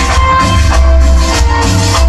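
Loud recorded Latin dance music with a heavy pulsing bass and percussion, played through a sound system.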